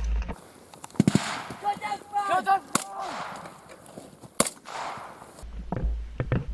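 Rifles firing blank rounds: sharp single shots about a second in, near the middle and about four and a half seconds in, with distant shouting between them. Near the end a low wind rumble buffets the microphone.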